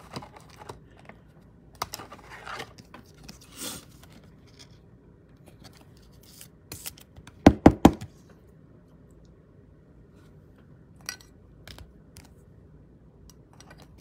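Hands handling trading cards and a rigid clear plastic card holder: scattered light scrapes and plastic clicks, with three sharp clacks in quick succession a little past halfway, the loudest sounds, and a few lighter clicks after.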